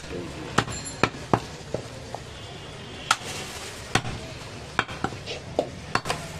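Heavy meat cleaver chopping a goat leg into pieces on a wooden log chopping block: about a dozen sharp, irregularly spaced chops.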